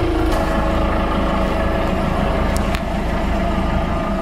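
Inboard engine of the motorboat Barbara, an old crew boat, running steadily while the boat is under way.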